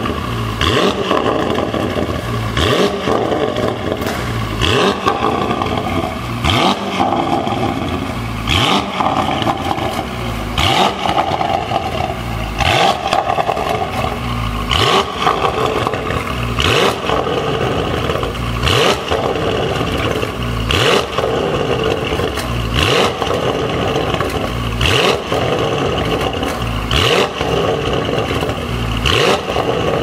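Twin-turbo V8 of a Porsche 971 Panamera GTS fitted with a catless downpipe and valvetronic cat-back exhaust, blipped repeatedly. Each short rev rises and falls back, about one every two seconds.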